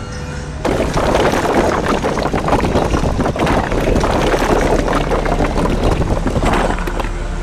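A loud rushing noise with no clear pitch starts suddenly about a second in and eases off near the end.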